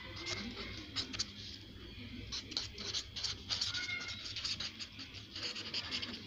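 Felt-tip pen scratching across paper in quick short strokes as words are handwritten, with a couple of faint brief squeaks about three seconds in.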